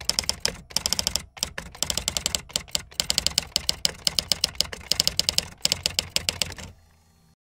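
Typewriter-style typing: rapid, irregular key clicks, several a second in uneven runs, stopping about seven seconds in.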